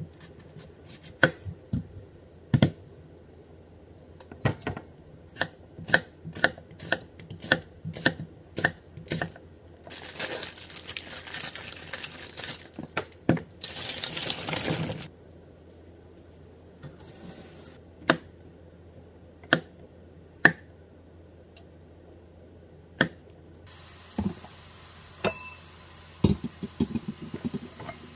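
Chef's knife chopping an onion on a wooden cutting board, a run of sharp even chops about two a second. About ten seconds in comes a few seconds of loud rushing hiss, followed by scattered knocks.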